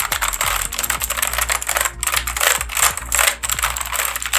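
Fast typing on an HP GK100 mechanical keyboard with blue switches: a dense, unbroken run of keystroke clicks, several a second, very noisy.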